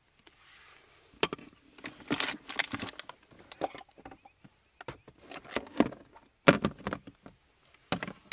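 A metal spoon scraping and clicking against a plastic divided food tray while someone scoops food, an irregular run of short scrapes and knocks starting about a second in.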